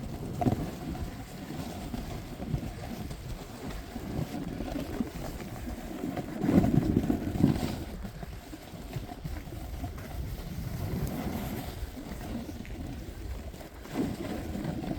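Wind rushing and buffeting over the microphone of a snowboarder riding downhill. It swells louder in gusts, strongest about halfway through.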